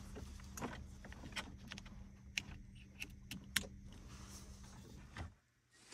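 Plastic wiring-harness connectors being handled and fitted together by hand: a series of light, sharp plastic clicks and wire rattles over a faint steady hum.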